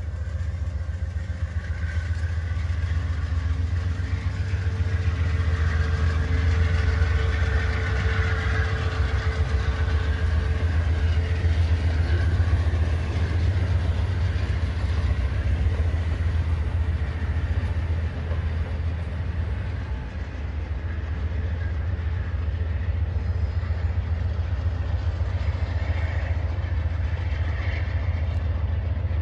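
Amtrak passenger train of bilevel Superliner cars rolling past, steel wheels on the rails making a steady low rumble.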